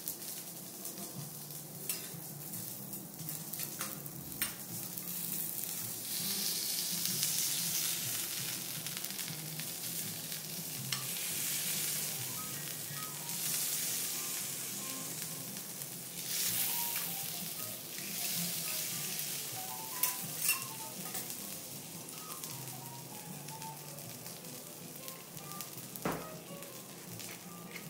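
A wagyu steak sizzling on a teppanyaki iron griddle. The sizzle swells and eases in waves, with a few sharp clicks of the chef's knife and fork against the griddle as the steak is cut in half.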